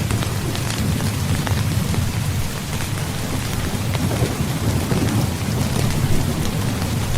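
Heavy rain falling steadily, with scattered sharp drop hits, over a continuous low rumble of thunder.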